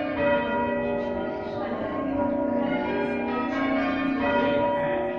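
Church bells rung by a team of bell ringers: several bells strike one after another, and their tones overlap and ring on.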